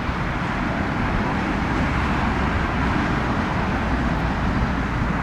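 Jet airliner engines passing, a steady rushing roar that swells slightly in the middle.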